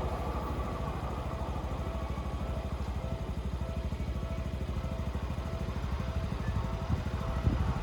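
A vehicle running with a steady low rumble of rapid pulses, with a short loud knock about seven and a half seconds in.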